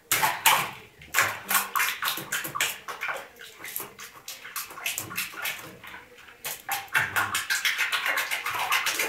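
Bathwater splashing and sloshing in a small plastic baby bath as hands move and slap through the soapy water: quick irregular splashes, sparser in the middle and busier again near the end.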